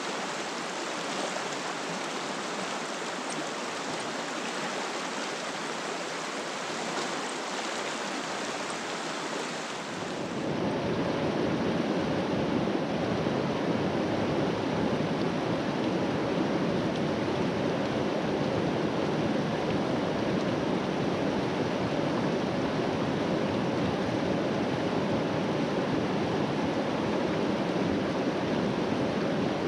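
Shallow mountain river rushing over rocks, a steady wash of water noise. About ten seconds in it becomes louder and fuller.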